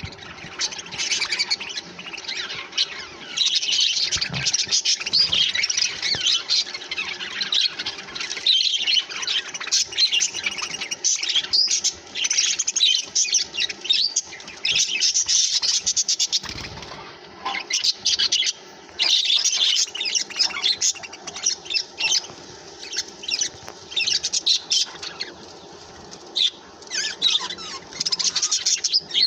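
A flock of budgerigars chattering and chirping continuously, many overlapping high twittering calls with brief lulls.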